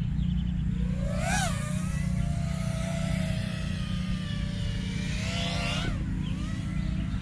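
A motor's pitched whine rising in pitch, holding steady for about four seconds, then dropping away, over a steady low rumble.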